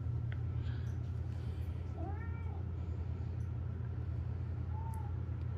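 A domestic cat meows once about two seconds in, a short call that rises and falls in pitch, and gives a fainter, shorter call near the end, over a steady low hum.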